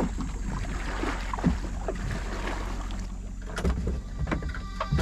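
Small bamboo-outrigger boat (bangka) under way on calm water: water splashing and lapping around the hull, with a few irregular knocks and a steady low hum.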